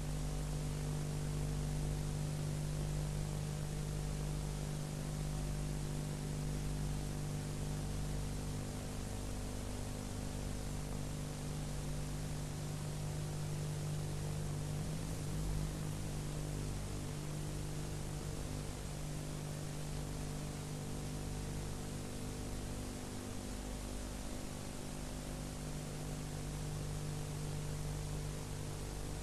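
Steady electrical mains hum with a stack of buzzing overtones under constant hiss: the noise floor of an old film transfer with no speech or music.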